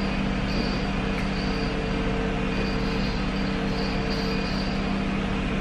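A steady machine hum with a constant low drone and a faint higher whine, unchanging throughout.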